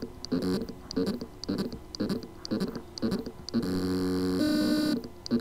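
Seagate Barracuda ST2000DM001 hard drive's spindle motor trying to spin up: a run of short pulsing chirps about three a second, then a steady buzzing whine of about a second and a half that steps in pitch partway through. The motor can spin but cannot reach full speed, the symptom of loose motor contacts on the drive's circuit board.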